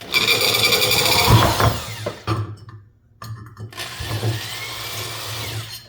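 Electric drill drilling out a rivet that holds the bushing in a box fan motor's bearing housing, run twice for about two seconds each with a short pause between.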